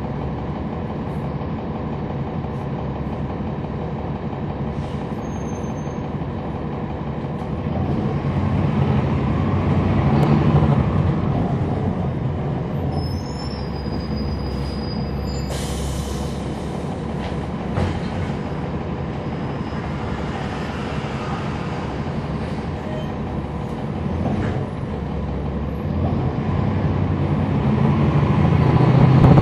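Interior of a 2011 NABI 40-SFW transit bus heard from the back seat: its Cummins ISL9 diesel and ZF Ecolife automatic transmission running steadily under way, swelling louder twice, about a third of the way through and again near the end. A few thin high squeals and a short hiss come about halfway through.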